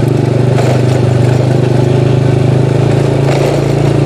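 Small motorcycle engine running at a steady, even pitch while being ridden.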